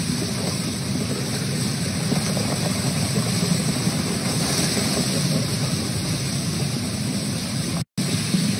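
Floodwater rushing in a torrent down a town street: a steady, deep rushing noise that cuts out for a moment near the end.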